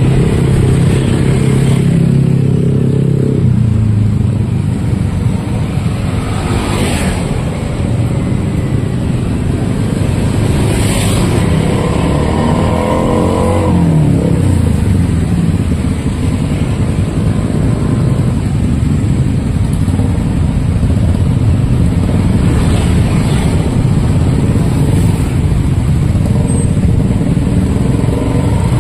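Street traffic: engines of passing cars and motorcycles running steadily, with one engine rising and falling in pitch as it passes about twelve to fourteen seconds in.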